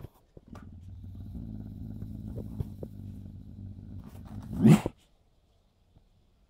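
Eurasian lynx making a low, steady rumble close up, broken by a short loud sound about four and a half seconds in, after which it stops.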